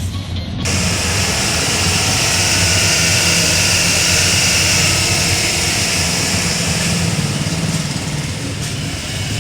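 A vehicle on the move: a steady low engine hum under a loud, even rush of wind and road noise that comes in sharply about half a second in.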